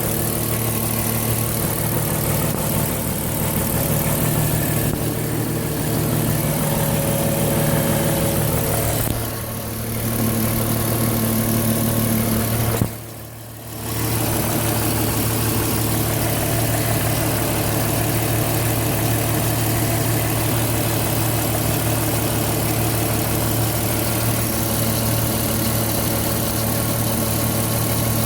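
Porsche Cayenne engine idling steadily. About halfway through, the sound drops away suddenly for about a second, then returns just as steady.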